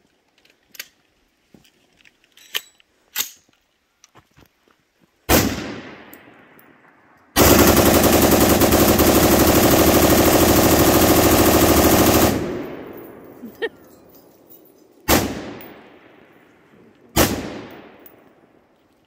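Fully automatic AR-15 pistol firing: one shot, then an unbroken burst of rapid fire lasting about five seconds, then two more single shots about two seconds apart. Each report dies away slowly in a long echo.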